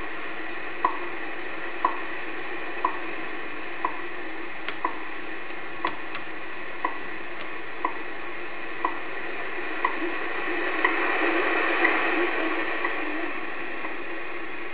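WWV standard time broadcast on 10 MHz shortwave played through a radio receiver: a short tick once a second, the seconds pulse, over a steady hiss of static. The static swells for a few seconds about ten seconds in.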